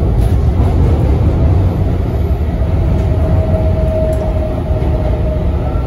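Cabin running noise of an MTR Tung Chung line A-train electric multiple unit: a loud, steady low rumble from the wheels and track. A faint steady whine swells in the middle and then fades.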